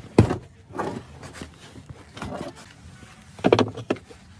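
Knocks and rustling from handling in a car interior: a sharp knock near the start, then a quick cluster of wooden knocks about three and a half seconds in as pine boards are set down on the bare metal floor pan.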